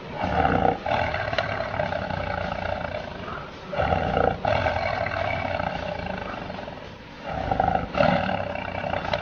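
Big cats roaring in a fight: three long, drawn-out roars of about three seconds each, with short breaks between them.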